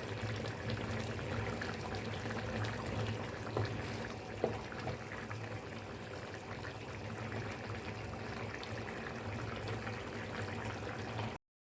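Pot of chicken in tomato sauce simmering, a steady bubbling hiss with a few light clicks, which cuts off suddenly near the end.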